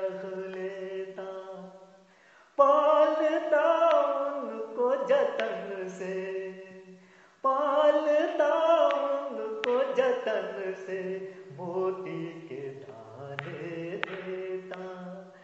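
Man singing a Hindi film song to a karaoke backing track, in long, wavering held phrases; two loud phrases begin abruptly, about two and a half and seven and a half seconds in.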